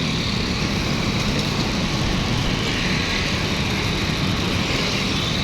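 Steady road traffic noise from a busy city street, an even rumble and hiss of passing vehicles.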